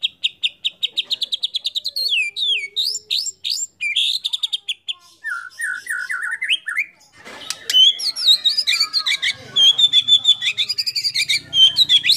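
White-rumped shama (murai batu) singing. It opens with a fast run of repeated high notes, about eight a second, then changes to varied sweeping whistles and a short series of lower, falling notes. From about halfway it breaks into a dense, rapid stream of mixed phrases.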